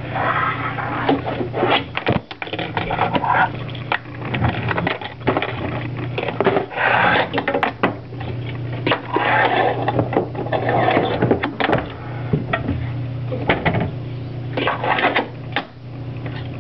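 Tech Deck fingerboard clattering on a wooden ramp and tabletop: many irregular sharp clicks and knocks of its wheels and board, over a steady low hum.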